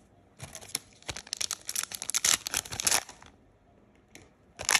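Foil wrapper of a MetaZoo booster pack crinkling and tearing as it is ripped open. The dense crackle lasts about three seconds, then a short burst of crinkling comes near the end.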